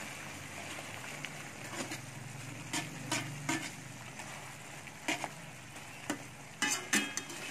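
Squid rings frying in a wok of turmeric gravy, a steady sizzle, while a slotted metal spatula stirs them, scraping and clicking against the pan every so often, most busily near the end.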